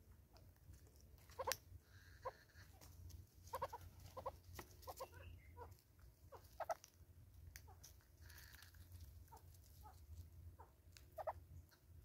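Southern red-billed hornbills pecking seed off a wooden tree stump: faint irregular bill taps mixed with short, soft clucking notes.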